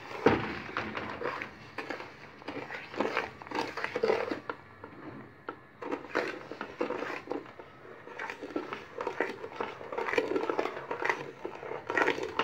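A spoon stirring sugar into blended red grapes in a large aluminium pot, scraping and rustling in repeated irregular strokes, as the sugar is worked in to dissolve for jam.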